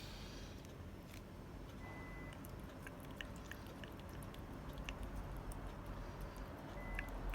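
Cat licking and eating a Churu lickable treat: soft, irregular small clicks of its mouth and tongue.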